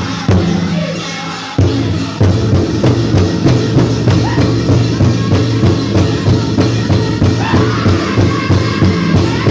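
Powwow drum group singing a chicken dance song over a big hand drum struck in unison; the drumming settles into a steady beat of about two to three strokes a second from about a second and a half in.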